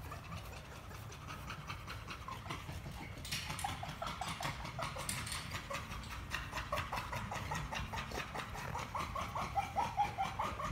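American bully dogs playing, panting, with quick, repeated short high-pitched whines that start about three seconds in and grow busier toward the end.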